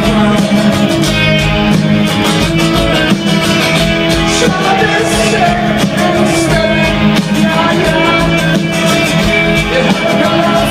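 Rock music playing loudly and without a break: a band with guitar and a singing voice.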